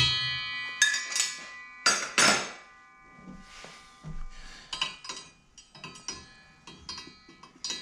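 Steel wrenches clanking and ringing on the metal table-saw top, several loud strikes in the first two and a half seconds. Then a run of light metallic ticks as the newly fitted blade is turned by hand, its teeth catching on a bent tab of the riving-knife sleeve.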